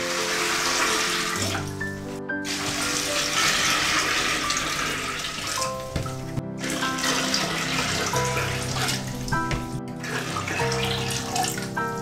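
Water poured from a jug into a large preserving pot, splashing over submerged glass jars as the pot fills, in several long pours with brief breaks. Soft background music with sustained notes plays underneath.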